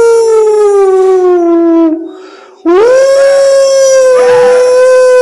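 A hound dog howling: one long howl that sinks in pitch and fades out about two seconds in, then, after a brief breath, a second howl that rises and holds steady.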